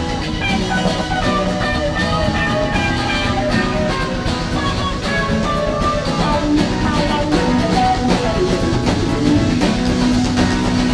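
A live rock band playing an instrumental jam: electric guitar melody lines over bass and drum kit.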